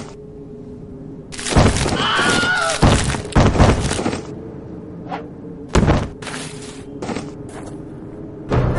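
Cartoon sound effects over a steady low hum: a run of loud thuds and clattering crashes, with a brief wavering creature-like voice about two seconds in, then a few lighter knocks.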